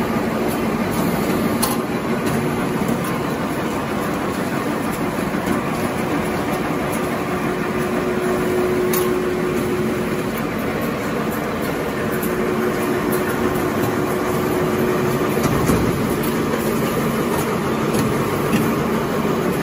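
XY-OQ-7000-A glue-lamination napkin tissue production line running: a steady mechanical noise of the folding, stacking and conveyor machinery, with a low hum that comes and goes and faint clicks now and then.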